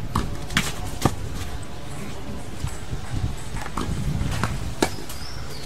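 Tennis ball struck by rackets and bouncing on a clay court during a serve and rally: a series of sharp knocks, the loudest about half a second in, about a second in and near the end, over a steady low rumble.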